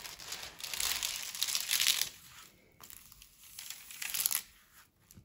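Clear plastic protective film on a diamond painting canvas crinkling as hands handle and smooth the canvas flat. The crinkling is loudest for the first two seconds, then quieter, with a shorter burst about four seconds in.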